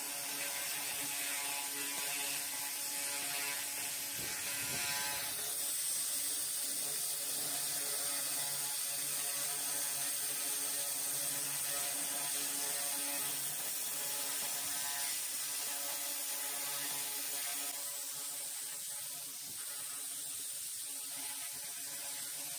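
300 W pulsed fiber laser cleaner running as it burns paint and rust off metal: a steady buzz with a high hiss over it.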